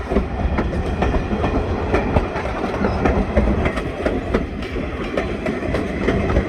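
Train cars rolling past the track at close range: a steady loud rumble with the wheels clacking over the rail joints.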